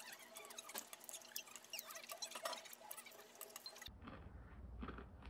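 Close-up eating sounds: metal chopsticks clicking against a ceramic plate and wet chewing of takoyaki, many small clicks and squelches. About four seconds in it gives way to a quieter room with a low hum and a few faint ticks.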